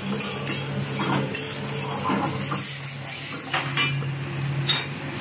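Metal ladle stirring and scraping around an iron wok of thick sauce, with scattered clinks of metal on metal over a steady low hum.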